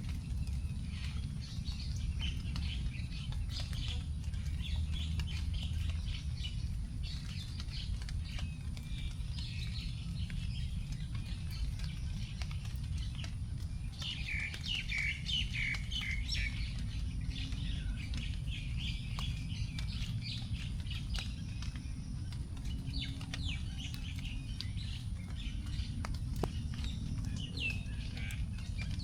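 Small birds chirping and calling in short repeated phrases, busiest about halfway through, with the last raindrops dripping onto leaves as scattered single ticks. A steady low rumble runs underneath.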